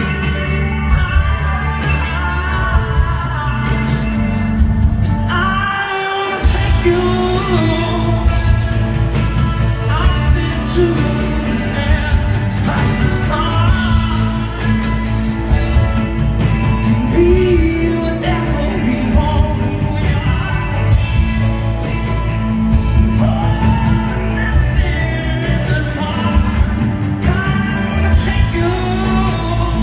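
Live rock band playing a song: a male lead singer over electric guitars, drums and keyboard, heard from the crowd in a large hall. The low end drops out for a moment about six seconds in, then the band comes back in.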